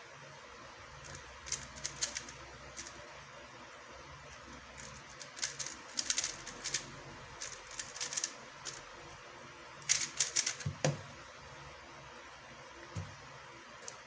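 Plastic speedcube (QiYi Thunderclap V3M) being turned fast, its layers clicking and clacking in quick bursts of turns with short pauses between. A low thump comes about eleven seconds in, as the turning stops.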